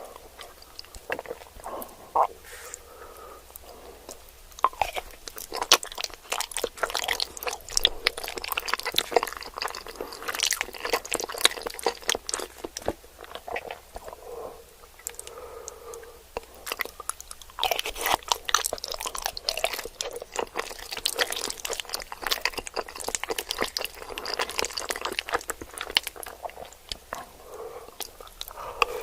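Close-miked ASMR eating: food being bitten and chewed, with dense, irregular crunching crackles and softer wet mouth sounds between them.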